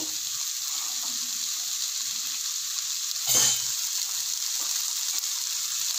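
Onion and tomato masala sizzling steadily in oil in a nonstick kadai, with one short louder noise a little over three seconds in.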